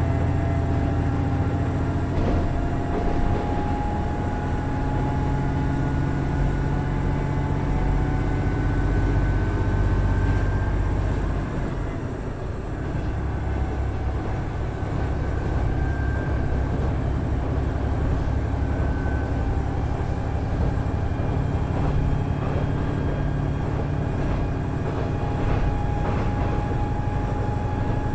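Running sound inside a KiHa 110 series diesel railcar: its Cummins DMF14HZA engine drones steadily under the floor, together with wheel and rail noise, and the level dips slightly about twelve seconds in.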